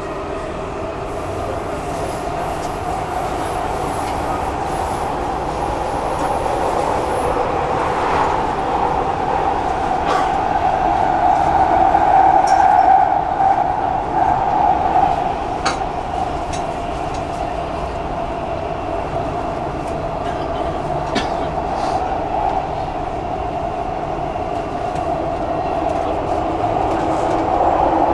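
Dubai Metro train running between stations, heard from inside the carriage: steady running noise that swells about halfway through, with a few faint clicks and rattles.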